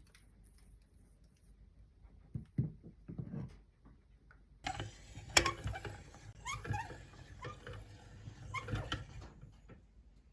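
Meat grinder working mini ice creams through: two dull knocks, then from about four and a half seconds in a few seconds of wet crackling and squishing with sharp clicks and short squeaks, which stops near the end.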